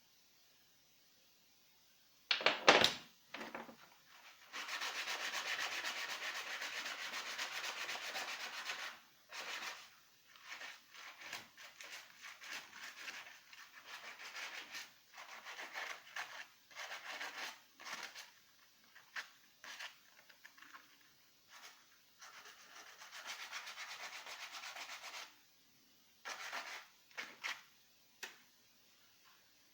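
Abrasive scrubbing on an old tool being restored. A sharp scrape comes about two seconds in, then a steady run of rapid rubbing strokes for about four seconds. Scattered short strokes follow, with a second steady run later on.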